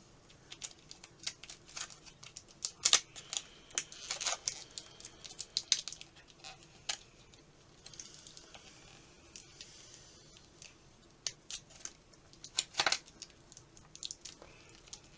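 Handling of a plastic blister tray and tape: irregular sharp clicks and crackles, with a stretch of soft crinkling a little past the middle, as taped-down accessories are worked free of the packaging.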